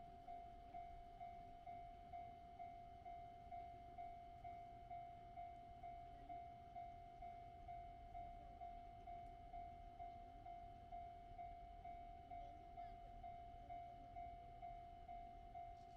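Japanese railway level-crossing warning bell ringing: a single electronic ding repeating evenly about one and a half times a second, over a faint low rumble.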